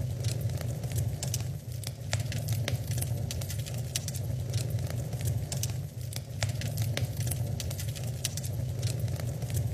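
Wood fire crackling in a fireplace: frequent irregular pops and snaps from the burning logs over a steady low rumble.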